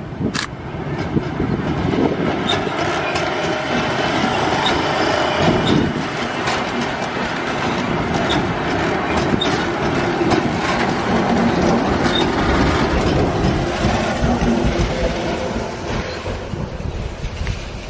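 Electric multiple-unit passenger train passing close by, with a steady rolling rumble of wheels on rail and scattered clacks as the wheels cross rail joints. It eases off slightly near the end.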